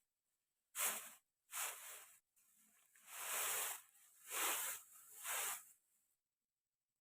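Five short swishing, rustling noises, roughly a second apart, then the sound cuts off suddenly.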